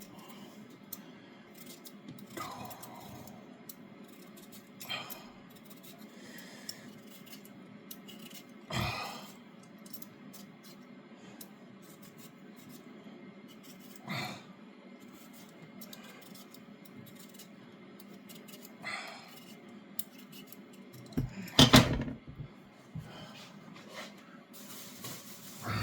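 Occasional short scrapes and knocks of a kitchen knife working a potato on a chopping board, with a louder clatter about twenty-two seconds in.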